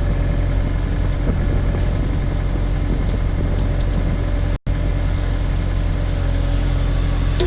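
Case/Davis D100 backhoe's engine running steadily while the bucket works a stump loose. The sound cuts out completely for an instant about halfway through.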